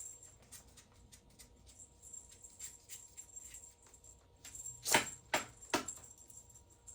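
Small clicks and metallic jingles of an e-collar strap and its hardware being handled as the strap is worked off the receiver, with three sharper clicks about five seconds in.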